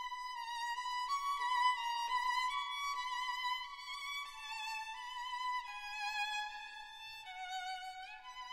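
Music: a slow solo melody of held notes with vibrato, in a violin-like tone, stepping from note to note and falling lower near the end.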